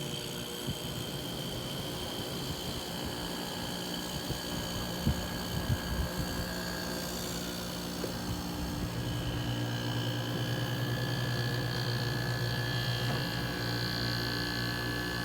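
1988 Carrier window air conditioner running out of its case on low cool, its GE fan motor and Toshiba rotary compressor just switched on. A steady mechanical hum with several steady tones, the low hum growing stronger about nine seconds in, with a few brief knocks around five seconds in.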